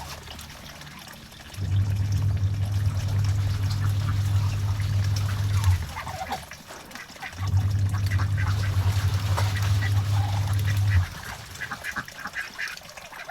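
Ducks quacking in their pen, scattered calls that grow busier in the second half. A loud low steady hum switches on for two stretches of about four seconds each.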